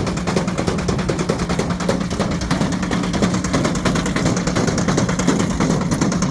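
Ariston Margherita washing machine running with a brick loose in the drum: a steady motor hum under a rapid, continuous clatter of knocks as the brick bangs against the drum.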